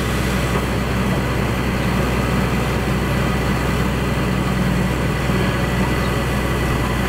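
Heavy excavator engine running steadily at a low, even pitch.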